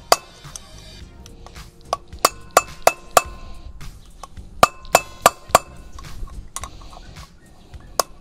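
A hammer striking a screwdriver used as a drift to knock the outer bearing race out of a VW Combi front wheel hub. It makes sharp metallic clinks with a brief ring, about a dozen blows in quick runs of four or five, with pauses of about a second between runs.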